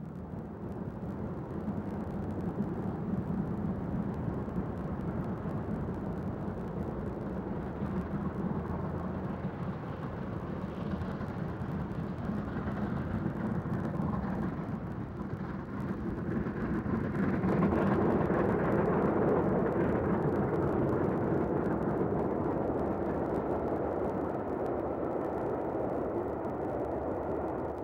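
Clan Line, a rebuilt Southern Railway Merchant Navy class three-cylinder steam locomotive, working a passenger train past. The steady running noise swells to its loudest about two-thirds of the way through as the engine goes by, then carries on more quietly as the coaches roll past.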